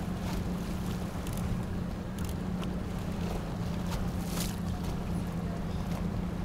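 Boat engine idling with a steady low hum, with a few brief hissy clicks over it, the clearest about four seconds in.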